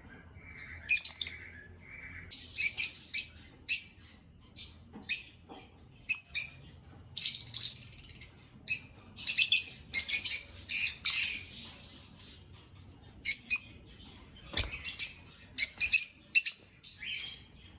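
Lovebirds chirping: many short, shrill, high calls coming in quick clusters with brief pauses between.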